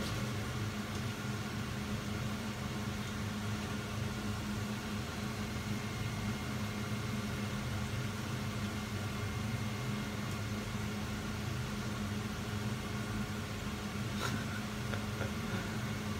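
Potatoes frying in a pot of oil: a steady, even hiss over a constant low mechanical hum, with a light tap about fourteen seconds in.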